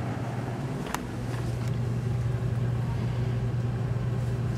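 A steady low hum with a faint hiss, and a single sharp click about a second in.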